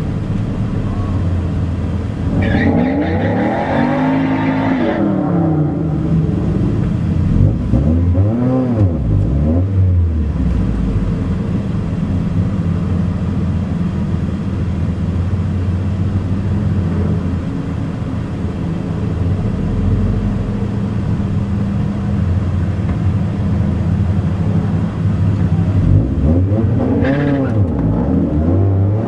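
Mazda Miata's four-cylinder engine with an aftermarket exhaust, heard from inside the cabin: revved up and down twice early on, then idling at a steady pitch for about fifteen seconds, then revving up again near the end.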